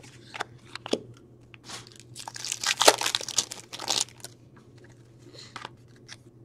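Crinkling and tearing of a trading-card pack wrapper being handled and torn open, with a few sharp clicks first and the loudest crinkling in the middle.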